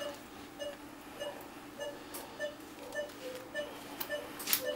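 Anaesthesia patient monitor beeping about twice a second, each beep tracking the anaesthetised dog's heartbeat, with a few faint clicks near the end.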